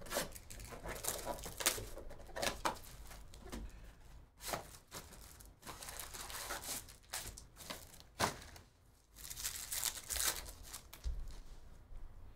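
Crinkling and tearing as the wrapping of a baseball trading-card box and pack is ripped open, in irregular crackling bursts.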